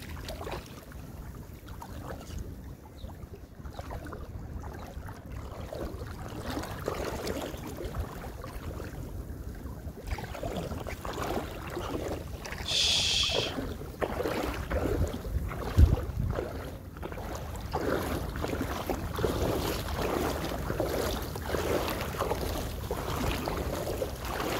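Wind rumbling on the microphone and water splashing as a hooked bluefish is fought on a light spinning rod and drawn in close. A short high-pitched buzz comes a little past halfway, and a single sharp thump a few seconds later.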